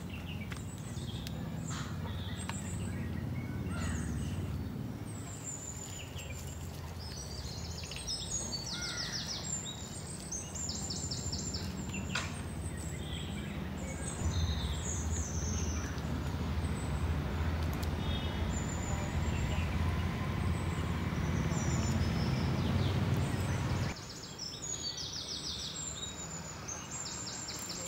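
Birds chirping and calling with short, high, repeated notes, over a steady low rumble that cuts off abruptly about 24 seconds in.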